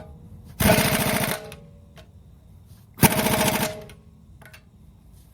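Impact wrench running lug nuts onto a car wheel through a torque-limiting extension, in two short bursts of rapid clatter about two seconds apart.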